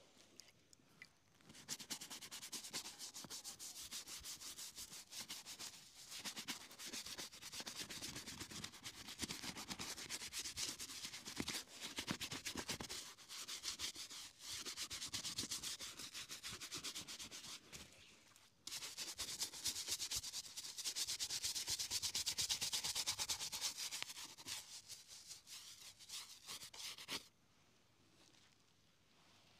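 Small shoe-polish brush scrubbing rapidly over a leather boot, a dense scratchy rustle of bristles on leather. It starts about a second and a half in, breaks off briefly about two-thirds through, and stops shortly before the end.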